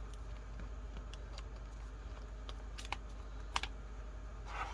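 Light scattered taps and clicks of paper being handled and pressed down on a journal page, with two sharper clicks about three seconds in and a brief paper rustle near the end.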